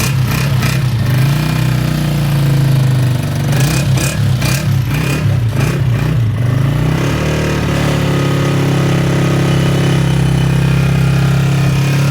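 Honda CG125's single-cylinder four-stroke engine running: revved up and down a few times by the throttle, then settling to a steady idle about seven seconds in.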